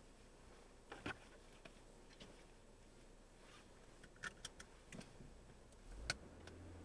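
Very quiet car cabin on the move: a faint steady hiss with a few scattered light clicks and ticks, and a low rumble coming in near the end.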